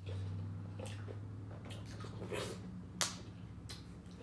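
Close-up eating sounds of a sauce-dipped crawfish: wet chewing and smacking with several sharp clicks and crackles, the loudest about three seconds in, over a steady low hum.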